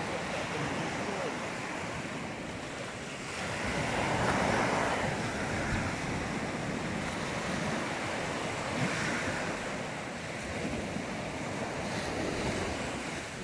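Small sea waves breaking and washing up on a sandy beach, with wind on the microphone. The surf swells louder about four seconds in as a wave breaks, and again more softly near nine seconds.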